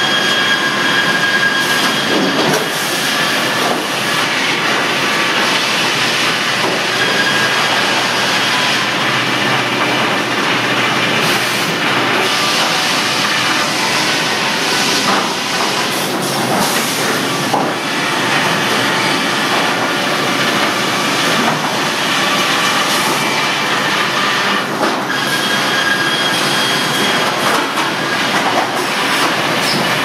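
Sawmill machinery running: chain and belt lumber conveyors and processing machines make a continuous loud clattering din. A brief high squeal rises out of it near the start and again near the end.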